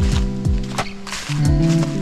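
Background music with a steady beat: deep drum hits under held notes, with sharp higher hits between them.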